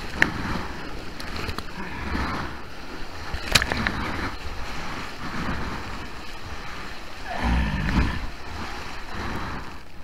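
Whitewash of a small breaking wave rushing and splashing close to a waterproof action camera at the water's surface, with spray hitting the housing in sharp little ticks. A louder surge of water comes about seven and a half seconds in.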